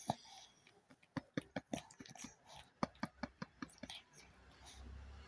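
A sleeping small dog's mouth making a rapid, irregular series of faint clicks and smacks as it dreams, followed by a low rumble near the end.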